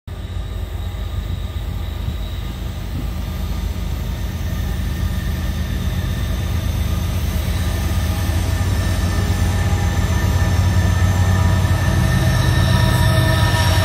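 Approaching freight train led by diesel locomotives: a heavy low rumble that grows steadily louder. Steady high-pitched squealing tones from the wheels rise over it toward the end.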